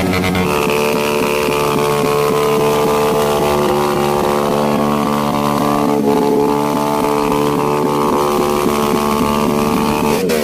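Motorcycle engine running at steady revs, a constant drone with no change in pitch.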